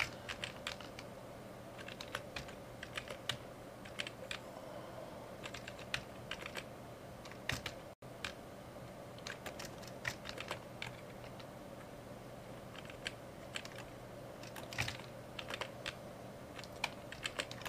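Computer keyboard typing: irregular clusters of key clicks with short pauses between them, over a faint steady hum.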